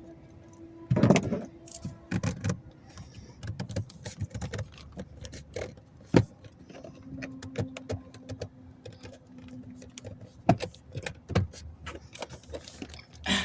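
Handling noise from prying at a clipped-in plastic cover under a Ford F-150 dashboard: scattered clicks, knocks and rattles of plastic and small metal parts. There is a louder clatter about a second in, a sharp knock about six seconds in and two more near the end, with a faint steady tone for a few seconds in the middle.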